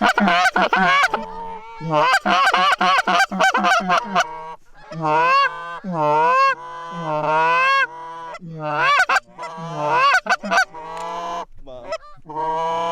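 Canada goose call blown by a hunter. Quick runs of short clucks give way to longer honks and moans that bend up and down in pitch, calling to geese circling back toward the decoys.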